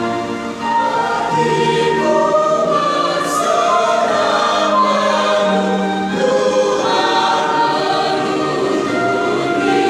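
Women's choir singing together in harmony, holding long notes, with a short dip just after the start as the phrase changes.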